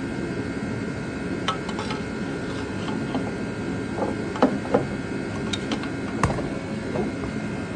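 A few sharp metallic clicks and knocks from a hand tool on a long extension bar, worked against the transmission bellhousing under the car, the loudest a little past halfway. A steady hum runs underneath.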